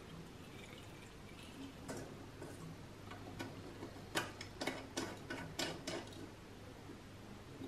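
Filler cap being screwed onto the kerosene tank of a Feuerhand hurricane lamp: a quick run of about eight sharp clicks over two seconds, a little past the middle, with a single click shortly before.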